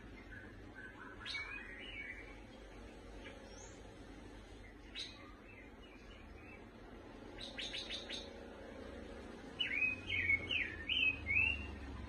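Caged lovebird chirping in short, separate calls, then a quick run of loud chirps near the end, the loudest part.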